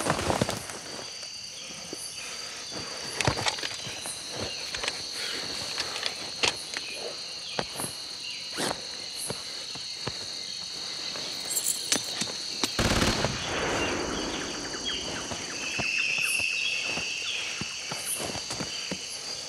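A steady high-pitched insect-like drone over scattered sharp snaps and crackles, like twigs and leaf litter on a forest floor being knelt and moved on, with a short rush of noise about two-thirds of the way through.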